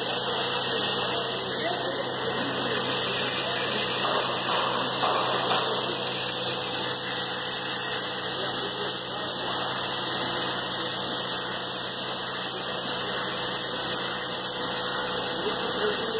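Syringe assembly machine running steadily: a continuous mechanical hum with a strong high hiss and a faint steady tone.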